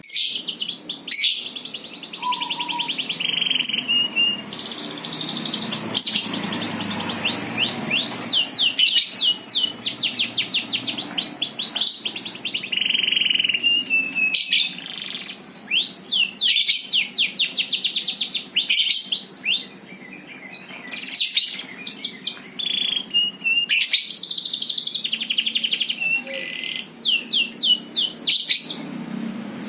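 A songbird singing a long, varied song: fast trills and runs of quick repeated sweeping notes, broken every few seconds by sharp, loud notes.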